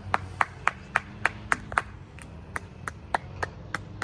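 Rapid, evenly spaced tongue clicks, about four a second and slowing slightly near the end, made by a person calling horses over.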